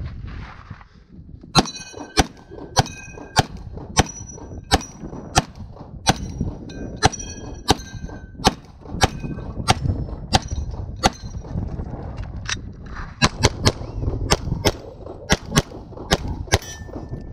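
A 9mm Glock 34 pistol fired in a rapid string of about thirty shots, starting about a second and a half in. Several shots are followed by the clang and ring of hit steel targets.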